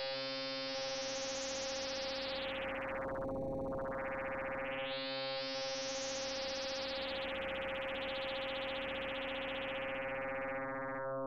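Two-operator FM synthesizer tone from Kyma, held on one steady pitch while joystick movements sweep its timbre: it swells bright twice, about a second and a half in and again about six seconds in, and thins to a duller tone around three and a half seconds and near the end.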